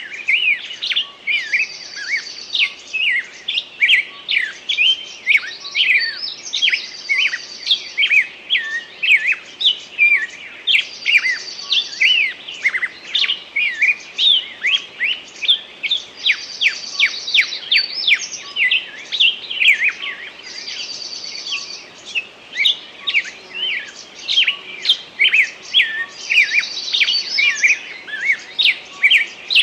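Songbirds singing in a summer forest: many quick, overlapping chirps and short whistled notes throughout, with one bird's high, fast trill returning about every five seconds.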